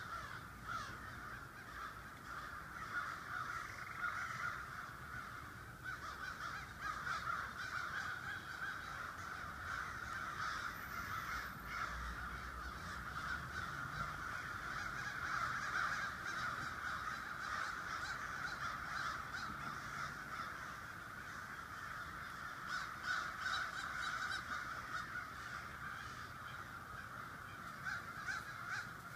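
A large flock of crows cawing all at once, many calls overlapping into one continuous chorus.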